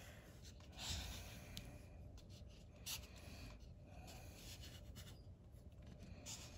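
Sharpie felt-tip marker faintly scraping across a scratch-off lottery ticket in short, irregular strokes as letters are marked off, strongest about a second in.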